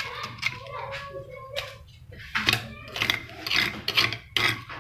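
Metal spoon scraping ground chilli spice paste out of a stone mortar and knocking it into a wok: a string of short scrapes and clinks, about ten in all.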